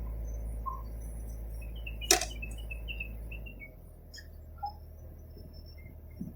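Faint outdoor ambience: a run of short high chirps, a single sharp click about two seconds in, and a low steady hum that drops away about three and a half seconds in.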